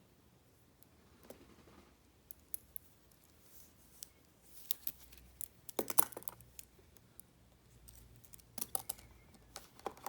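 Faint, scattered small clicks and light rustling from handling an unboxed watch and its packaging, with a denser cluster of clicks in the middle and again near the end.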